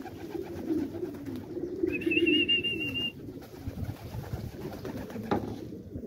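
Domestic pigeons cooing, a continuous low wavering warble. About two seconds in, a high warbling trill sounds for about a second, and a sharp click comes near the end.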